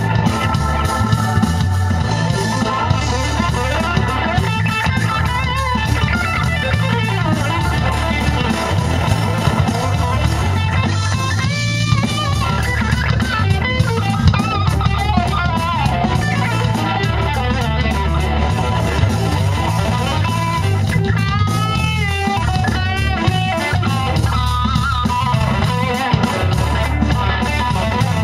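Live funk-fusion band playing: electric guitar, bass and drum kit in a steady groove, with a wavering lead line about twelve seconds in and again past the twenty-second mark.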